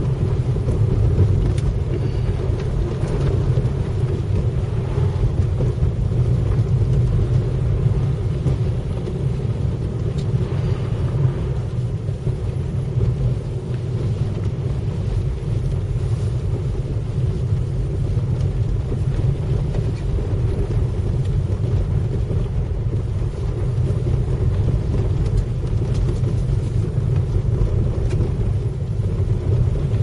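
Car driving on a snow-covered road, heard from inside the cabin: a steady low rumble of engine and tyre noise.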